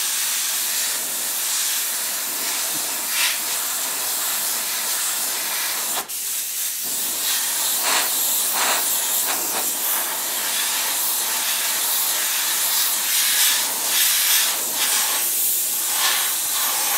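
Airbrush hissing as it sprays paint with compressed air, the hiss swelling in short bursts now and then. A single click comes about six seconds in.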